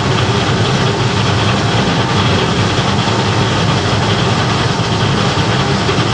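Rice huller-milling machine running steadily: a loud, even machine drone with no changes.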